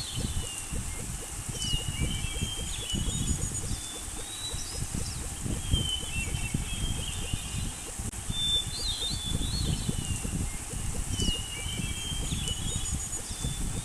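Small birds chirping and calling in short whistled phrases over a steady low rumbling background; the same phrases come round again about ten seconds later, like a looped nature-sound track.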